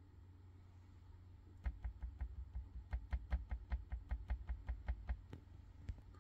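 Rapid run of small clicks on a laptop, about five a second for roughly four seconds starting after a second and a half, as keys or a mouse are pressed repeatedly to scroll through a folder list.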